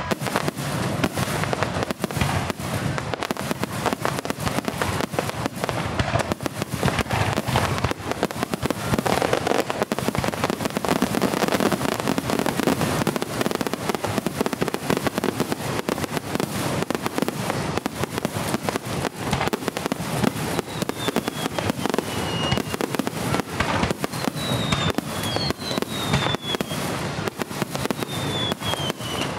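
A rapid barrage of aerial firework shells bursting overhead: closely packed bangs and crackling with hardly a break. In the last third, several whistles fall in pitch among the bursts.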